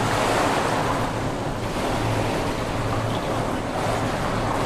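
Steady splashing of a swimmer's flutter kick on the back, with a low steady hum underneath.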